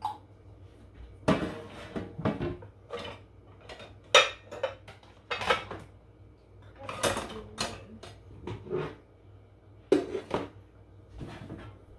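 Pots, pans and metal utensils clanking and clattering: about a dozen separate knocks and clinks, some ringing briefly.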